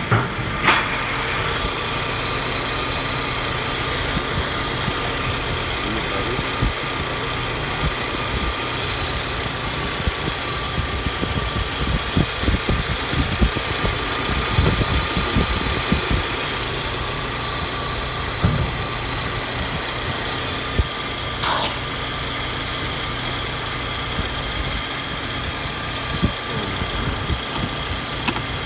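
Fiat Ulysse 2.0-litre XU10J2 four-cylinder petrol engine idling steadily, heard with the bonnet open, with a few dull low knocks about halfway through.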